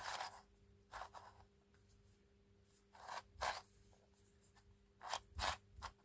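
A plastic twisty puzzle cube being turned by hand: its layers rub and click against each other in four short, faint bursts of twisting.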